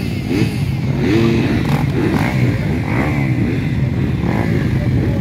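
Several motocross bikes running at the start line, idling with repeated overlapping throttle blips that rise and fall in pitch as the riders warm their engines before the start.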